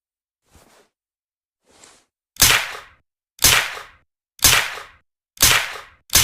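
Suppressed Uzi submachine gun firing single shots. Two faint pops come first, then four loud shots about a second apart starting a little over two seconds in, each with a short fading tail, and a fifth right at the end.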